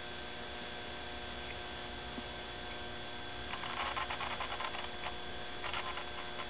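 A steady electrical hum, with faint clicks and rustles of the knife being handled close to the microphone from about three and a half seconds in.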